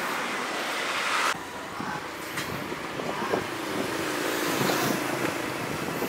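Road traffic noise from passing cars: a steady hiss, louder for about the first second, then softer.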